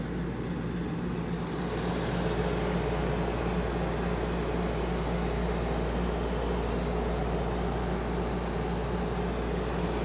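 Ducted whole-house dehumidifier running after being wired in through its own relay: a steady machine hum with a low drone, a little louder from about two seconds in.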